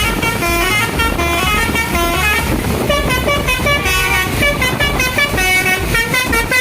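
Multi-tone 'basuri' telolet horn on a tour bus, loud, playing a fast melody of short stepped notes without a break.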